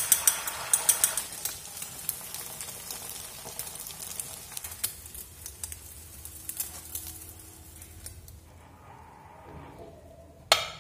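Beaten egg frying in hot oil in a pan: sizzling with sharp crackles and spits in the first second or so, then a softer sizzle that fades away.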